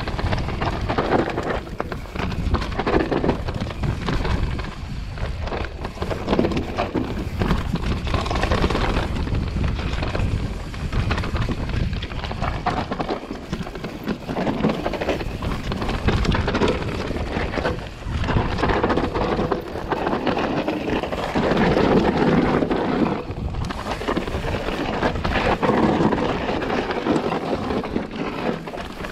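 A mountain bike descending rough, rocky dirt singletrack, heard from the rider's helmet camera: tyres rumbling over dirt and stones, with constant knocks and rattles from the bike over the rough ground and wind buffeting the microphone.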